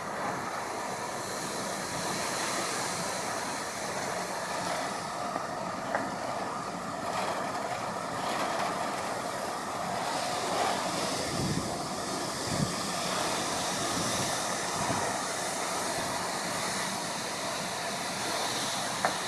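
Strong typhoon wind gusting through apple trees, a dense rushing of leaves that swells and eases, with low buffeting of wind on the microphone in the middle and a few sharp clicks.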